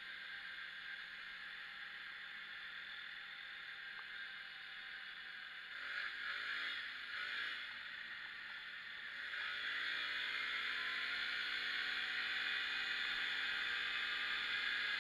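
ATV engine running under way. It revs up and back down about six seconds in, then climbs steadily in pitch and gets louder from about halfway through as the quad accelerates.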